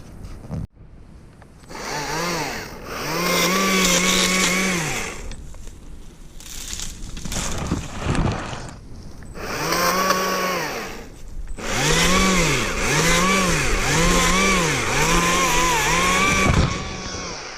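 Stihl MSA 120 C cordless chainsaw triggered in repeated bursts, its electric motor spinning up, holding and winding down each time: a short burst, two longer runs, then about five quick pulses near the end.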